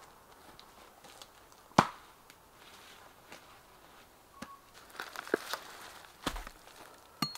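Scattered rustling and light wooden knocks from a person working by hand in forest undergrowth, with one sharp crack about two seconds in that is the loudest sound.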